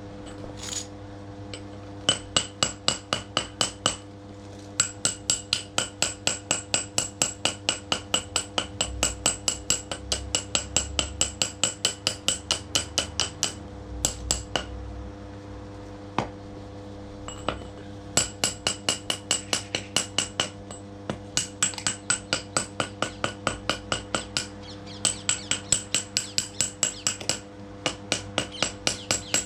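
DeWalt hammer striking rapidly and evenly, about five metallic blows a second with a bright ring, in runs of several seconds broken by short pauses, over a steady low hum.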